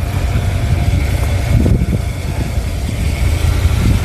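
1968 Pontiac Ventura's engine idling steadily with a deep low rumble, warming up just after a cold start in the snow.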